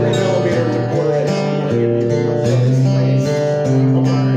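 Acoustic guitar being strummed through a song, the chords changing every second or so.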